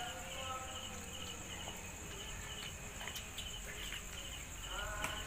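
Night insect chorus: a steady high shrill from insects, with crickets chirping in short repeated bursts over it.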